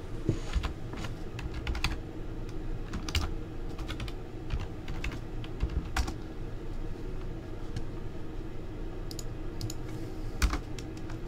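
Typing on a computer keyboard: scattered, irregular key clicks with short pauses between them.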